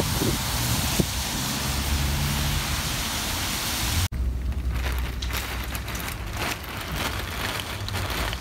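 Heavy rain on a wet street, with car tyres swishing past on the wet road. About four seconds in it cuts to rain hitting a window pane, heard as many small ticks over a low rumble.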